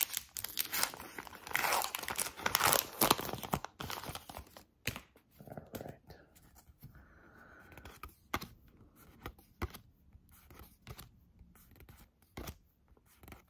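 Foil wrapper of a Pokémon booster pack being torn open and crinkled for the first few seconds. After that come the sparse ticks and rustles of trading cards being handled and slid through by hand.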